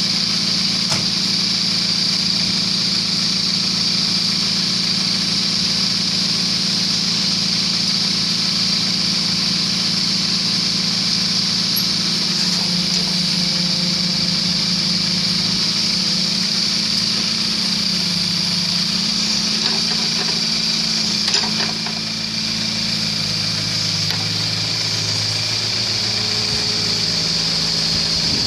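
Case mini excavator's diesel engine running steadily while its hydraulics lift and drive it up onto a flatbed truck, with a steady high whine above it. From about halfway through, the engine note shifts under load, and there is a single clank about three quarters of the way through.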